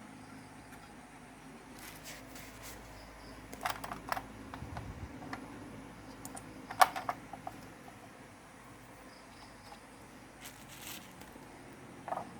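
Scattered small clicks and taps from computer parts being handled and fitted on a motherboard, the sharpest click about seven seconds in, with brief rustles between.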